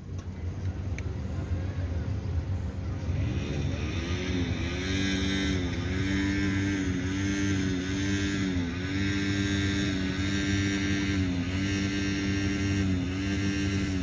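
An engine running. About three and a half seconds in its pitch rises, then holds, sagging and recovering every second or so.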